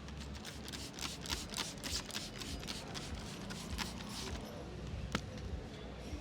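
Hands working over a head and face in a barber's head massage: an uneven run of quick, sharp slapping and rubbing strokes, then a single sharp crack about five seconds in.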